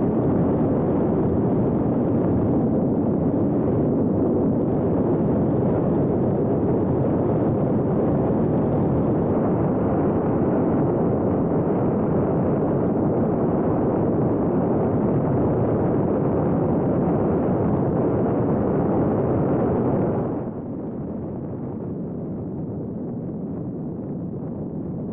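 Loud, steady rushing of wind over the on-board camera of a flying RC jet, without any clear motor tone. About twenty seconds in it drops suddenly to a quieter rush.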